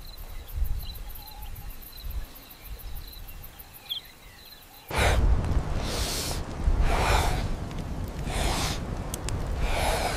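Faint insects chirping at night. About halfway through, a burning torch flame comes in much louder, crackling and whooshing in repeated swells.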